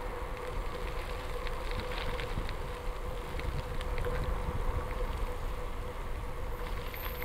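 Wind buffeting the microphone over the tyre rumble of a bicycle rolling on a gravel road, with scattered small clicks and rattles and a faint steady high hum underneath.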